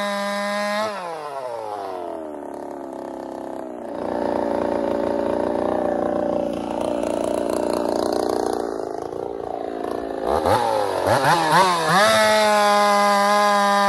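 Ported, big-bore Holtzfforma 372 two-stroke chainsaw at full throttle, then let off about a second in so the revs fall away to a lower running speed. Near the end it is blipped up and down several times, then held steady at full throttle.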